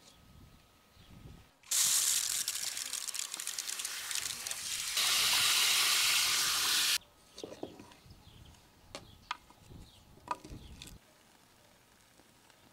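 Garden-hose spray nozzle spraying water onto raw beef bones in a metal cauldron. It starts about two seconds in as a loud, even hiss, gets louder about five seconds in, and cuts off suddenly about seven seconds in. A few light clicks and knocks follow.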